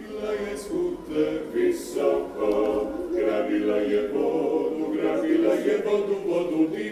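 Vocal music sung a cappella, choir-like, running steadily with no instruments standing out.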